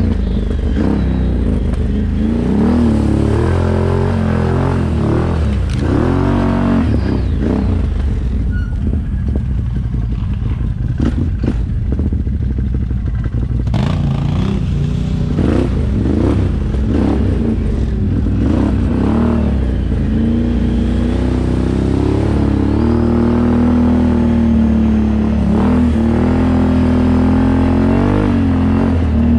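ATV engine being ridden, its pitch climbing and dropping over and over as the throttle is opened and eased off, with rattles and knocks from the machine throughout.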